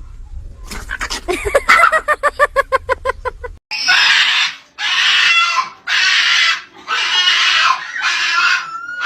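An animal calling: a quick run of short pitched calls, about five a second, falling slightly in pitch. Then, after an abrupt cut, a harsh squealing scream repeated about once a second.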